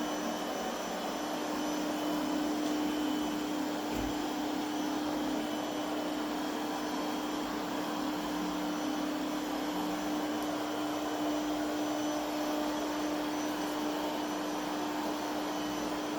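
PREMBOT P3 robot vacuum running steadily on high suction, a constant whirring hum with one brief knock about four seconds in.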